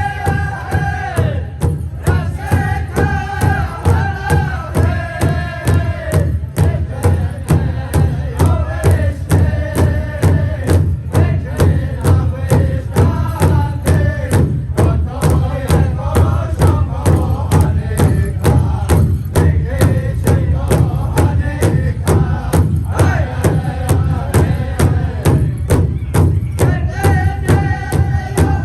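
Powwow drum group singing in unison over a big powwow drum struck in a steady, even beat.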